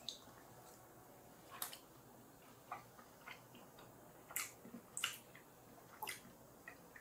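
A few faint, irregular clicks and crunches: someone chewing a bite of crisp-fried potato pancake.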